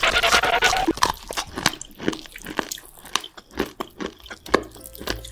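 Crisp crunching and chewing sounds of the eating-ASMR kind: a fast, irregular run of sharp crunches. A louder noisy burst fills about the first second.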